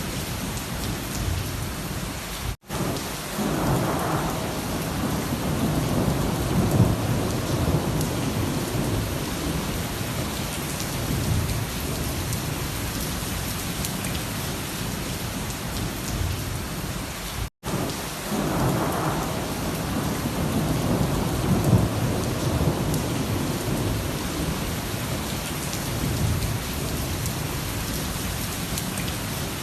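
Rain falling steadily, with two long rolls of thunder rumbling through it, one about three seconds in and one about eighteen seconds in. Each roll starts just after a brief dropout where the recording cuts out for an instant.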